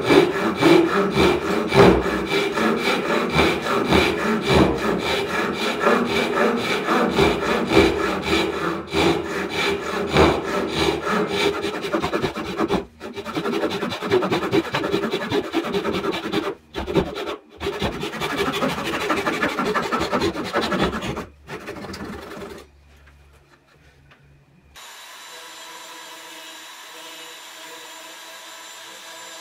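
A Japanese pull saw cutting through the end of a hardwood bowl blank, rapid even strokes with brief pauses. About three-quarters of the way through, the sawing stops, and a few seconds later a Foredom flex-shaft rotary carver starts up with a steady motor hum and whine.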